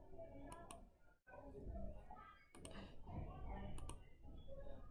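Computer mouse and keyboard clicks, quick pairs of sharp clicks: one pair about half a second in, another a little past two and a half seconds, and a third near four seconds, over a faint low hum.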